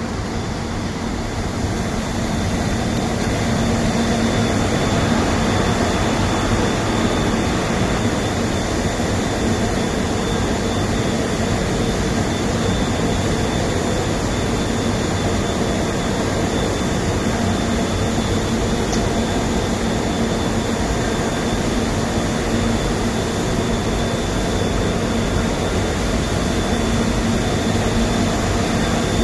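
Industrial machinery running steadily, likely a biomass rotary drum dryer plant. A constant roar carries a low hum and a thin high whine, and it fades in over the first couple of seconds.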